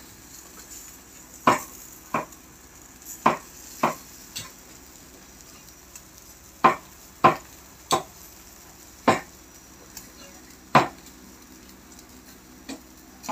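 Metal tongs clacking against the grill and meat on a charcoal barbecue as the meat is turned: about a dozen sharp, irregular clacks over a faint steady sizzle.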